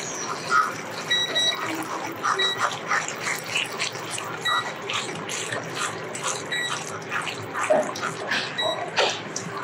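Pot of eggplant and tomato stew bubbling and crackling as it cooks, with a faint short beep repeating about every two seconds.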